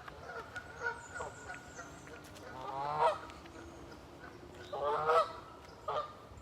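Geese honking: a string of short calls, with two longer, louder honks about three and five seconds in.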